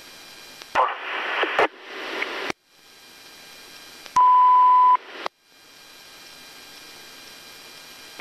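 Police radio channel hissing between transmissions, with a short burst of noisy static about a second in and brief drop-outs where the carrier cuts. Near the middle, a loud, steady, single-pitch beep sounds for under a second.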